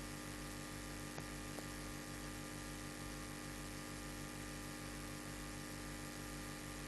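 Steady electrical hum with a layer of hiss, holding the same level throughout, with two faint clicks a little over a second in.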